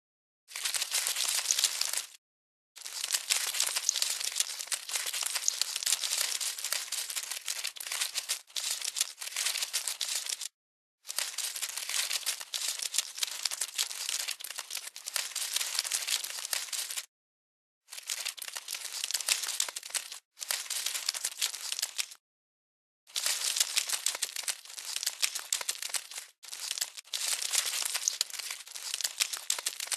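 Crackly rustling, crinkling sound effect, played in stretches of a few seconds that stop abruptly for short silent gaps, about six times.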